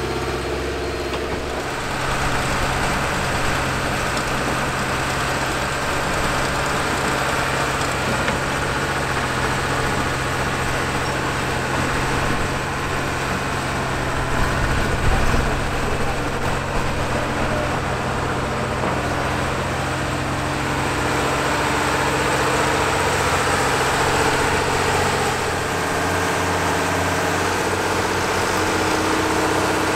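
Engine of vintage earthmoving machinery running steadily. Its note shifts about two seconds in and again near the end, with a brief louder moment around the middle.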